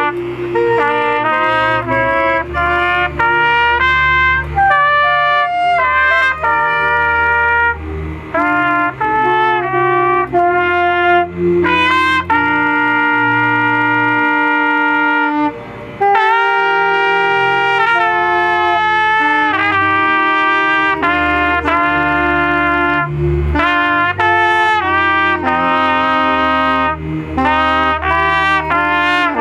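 Trumpet playing a slow hymn melody in long held notes over a low bass accompaniment, with a brief break about sixteen seconds in.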